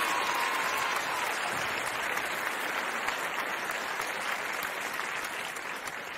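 Applause, a dense crackle of many hands clapping, slowly fading. The last held note of music dies away about a second in.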